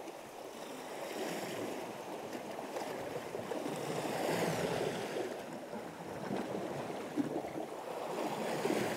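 Sea water washing against shoreline rocks, a steady rush that swells about four seconds in and again near the end.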